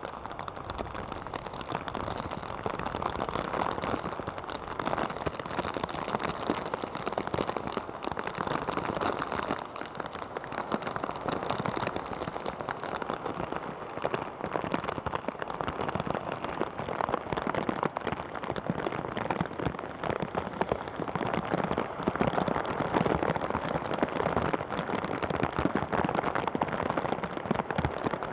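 Heavy rain pouring down steadily, with a dense patter of drops hitting close by.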